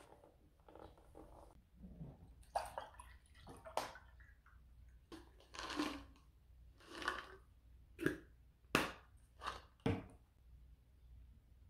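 A plastic supplement bottle being handled: a run of sharp clicks and short rattling rustles as the cap is worked and pills are tipped out into a hand.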